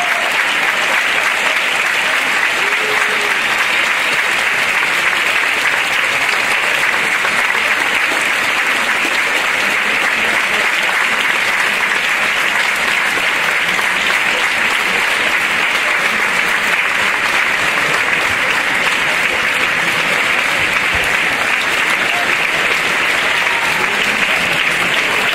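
Theatre audience applauding: dense, steady clapping that holds at the same level throughout.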